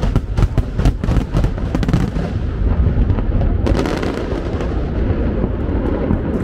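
Aerial fireworks shells bursting in quick succession, a rapid run of sharp bangs for about the first two seconds, then settling into a steadier din.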